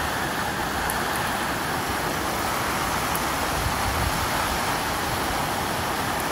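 Heavy hurricane rain and wind: a steady hiss with a low rumble underneath.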